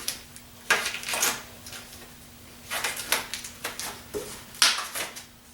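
Rustling and crinkling of parts packaging being handled and opened, in several irregular bursts.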